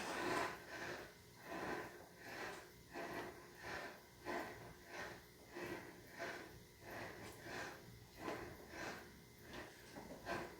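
A man breathing hard and rhythmically while exercising, short breaths in and out about one and a half times a second.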